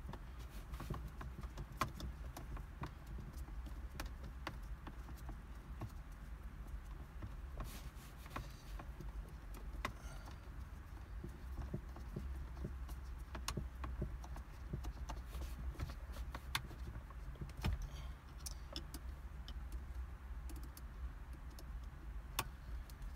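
Scattered small clicks and rattles of a screw being worked in by hand on the ignition key cylinder assembly under the steering column, with the keys jingling in the ignition, over a low steady hum.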